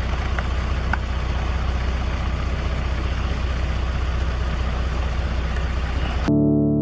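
A vehicle engine idling with a steady low hum under a hiss. Piano music cuts in near the end.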